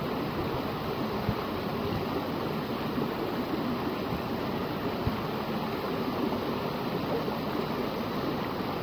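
Steady rush of water from a rock waterfall cascading into a pond, with a few faint low thumps.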